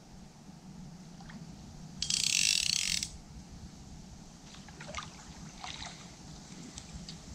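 Centrepin reel's ratchet check buzzing for about a second, a fast run of clicks as the drum spins. A few lighter clicks follow later.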